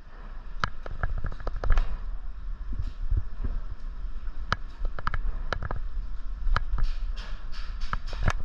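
Airsoft guns firing: scattered single sharp shots and a short quick burst, with no steady rhythm.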